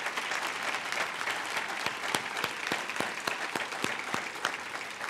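An audience applauding, with louder single claps from one person close to the microphone standing out in the middle.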